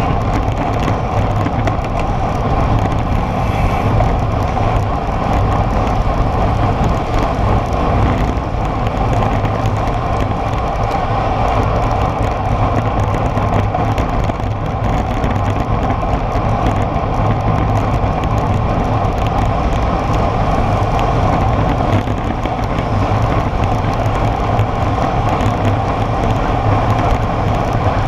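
Steady wind rush over a bike-mounted camera's microphone, mixed with tyre noise on asphalt, as a road bike rides at about 45 km/h.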